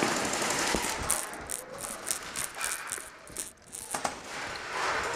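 Rattling and clicking of a moving airsoft player's gear and rifle, with a run of short, sharp, irregular clicks between about one and four seconds in.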